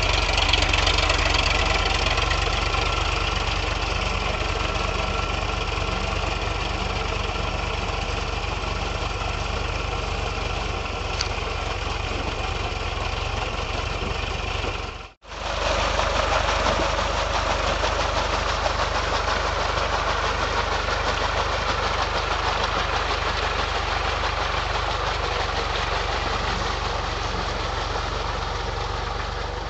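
Powertrac Euro 45 tractor's three-cylinder diesel engine running steadily as it pulls a puddler and leveler through flooded paddy mud, with a brief break about halfway through.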